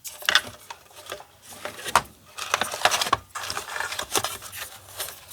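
Irregular clicks, taps and rubbing of small parts being handled as the blood pressure monitor's little air-pump motor and its tubing are fitted back into the casing.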